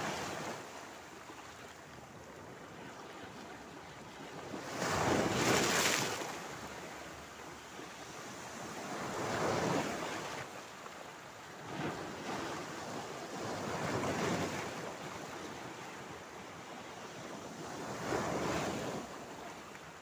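Mediterranean sea waves breaking and splashing against shoreline rocks, then washing back over them. The surf comes in surges every few seconds, the loudest about five seconds in.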